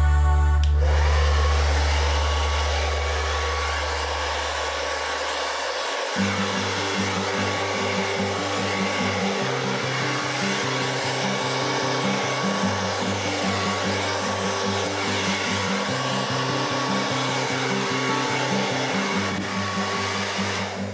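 Handheld hair dryer switched on about a second in and then blowing steadily, a rushing hiss with a faint steady whine, as it pushes wet acrylic pour paint across a canvas. Background music with a walking bass line plays underneath.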